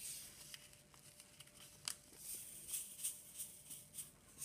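Faint soft rustling and squishing of a hand working flour into melted butter and oil in a glazed clay bowl, with scattered light ticks and one sharper tick about two seconds in.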